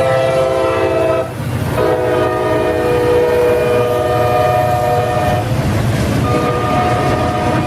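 Diesel freight locomotive's multi-note air horn sounding a chord in three long blasts with short breaks, about a second and five and a half seconds in, over the low rumble of the locomotive engines.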